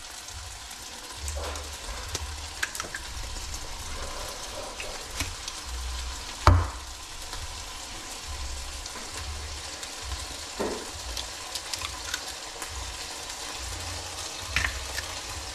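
Eggs cracked and broken into a plate, with one sharp crack about six and a half seconds in and smaller knocks later, over a steady frying sizzle with small crackles.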